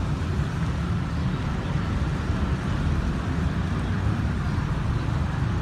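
Steady low rumble of city street traffic, engines running.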